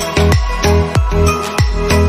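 Electronic background music with a steady kick drum and held bass and synth notes.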